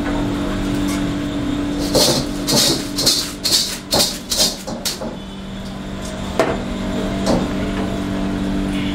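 Metal ladle scraping and knocking against a wok during a flambé, with flames flaring in the pan. A quick run of sharp scrapes starts about two seconds in and is followed later by a few single knocks, over a steady low hum.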